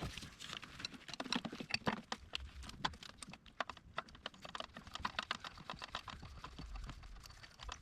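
Ratchet wrench clicking rapidly and unevenly as a bolt is run in.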